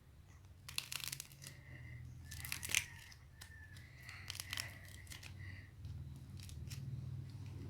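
Dried clay crust cracking and crumbling in short crackling clusters as a clay-coated piece is squeezed, a few seconds apart, over a low steady hum.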